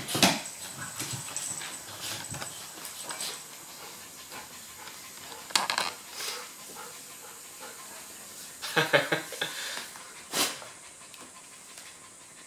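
Golden Retriever and Maltese playing: breathy panting and snuffling, broken by a few short, sudden huffs or scuffles, the loudest just after the start and again around nine to ten seconds in.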